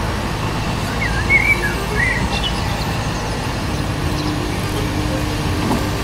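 Heavy forklift's engine running steadily, with a low rumble throughout. A few short bird chirps come through about a second in.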